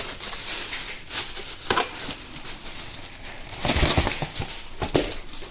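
Handling noise from the packaged flexible dishwasher hose: rustling and crinkling with a few short knocks, busiest a little under four seconds in.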